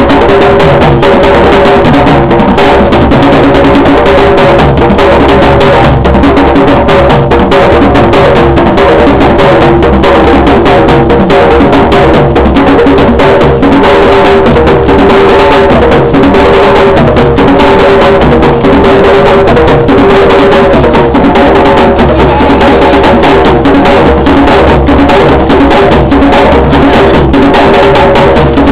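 Loud live drumming with a dense, unbroken run of strokes, held melodic tones running over it.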